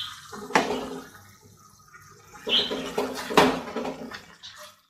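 Thick tomato and green chilli purée poured from a glass bowl into a non-stick kadhai of cashew-onion paste, then stirred in with a silicone spatula: wet squelching and sloshing, with two sharp knocks, about half a second in and again past three seconds.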